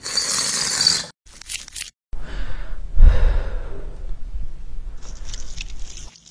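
A string of edited sound effects with hard cuts between them. First a hissing noise burst lasting about a second and a brief high scrape, then a low rumble that starts about two seconds in, with a heavy hit about a second later.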